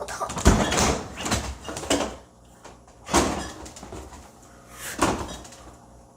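Refrigerator being rummaged through: rustling and clattering with a door or drawer opening and shutting. The sharpest knock comes about half a second in, with two more near three and five seconds.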